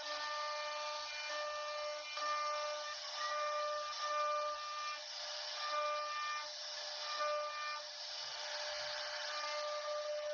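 CNC router running: a steady high whine over a hiss of cutting noise, with higher tones that switch on and off every second or so.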